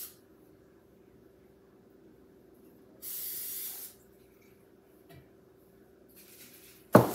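Aerosol cooking spray hissing in one burst of about a second, three seconds in, and a fainter short spray near the end. Right after it comes a sharp knock, the loudest sound, as something hard is set down.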